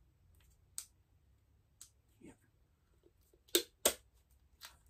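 Scattered sharp clicks and taps from handling a small electronic unit and its plug-in leads. The loudest are a pair about a third of a second apart, a little over three seconds in.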